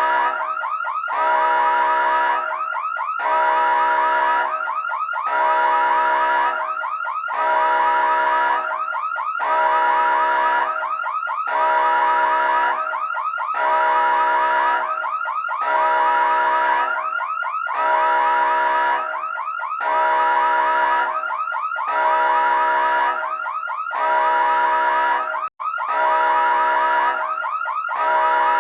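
Emergency siren sounding in a repeating cycle of about two seconds, a louder half alternating with a softer one, with a fast warble in the tone. It cuts out for an instant about 25 seconds in.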